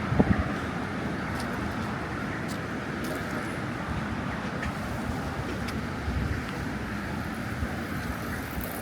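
Steady traffic noise from a busy city road, with vehicles passing. A brief louder knock just after the start.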